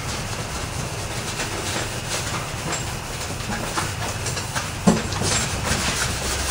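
Scotch-Brite pad scuffing the epoxy-primed edges of a steel door skin: a dry, back-and-forth rubbing with one sharper knock near the end.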